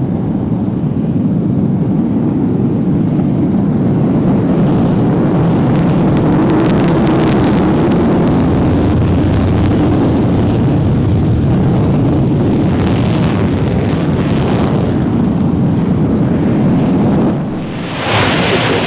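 Panavia Tornado's two RB199 turbofans running at full reheat on the takeoff roll: a loud, steady jet roar. Near the end it cuts to the brighter hissing jet noise of a hovering AV-8B Harrier.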